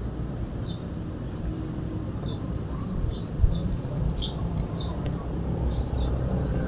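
Small bird chirping repeatedly: short, high notes that drop in pitch, every half second to a second, over a steady low rumble. A single thump sounds about three and a half seconds in.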